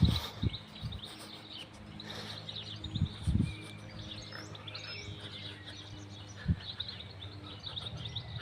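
Birds chirping and calling, with quick high chirps throughout and a couple of rising whistles about halfway through. A few soft low thumps come in between.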